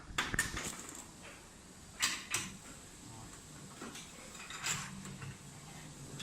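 Metal parts of a CNC router spindle being handled and fitted during bearing replacement: a few sharp clicks and knocks with scraping between them, the loudest near the start and about two seconds in.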